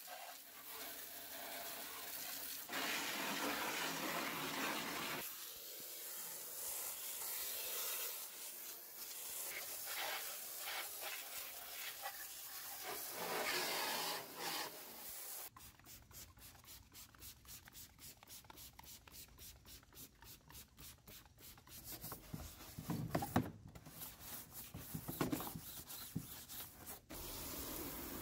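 Garden hose spray nozzle jetting water onto a car's exposed front end and bumper: a hiss of water with splashing that swells and fades as the spray moves. It drops abruptly about halfway through and grows louder and more uneven again near the end.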